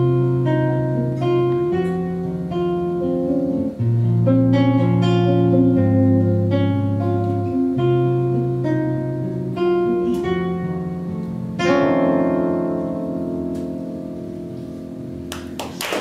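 Acoustic guitar fingerpicking a melody over changing bass notes, then striking a chord about twelve seconds in that rings on and slowly fades.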